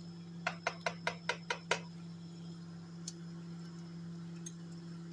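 A metal spoon knocking against the cooking pot, about seven quick clinks in a row, then a single faint one, over a steady low hum.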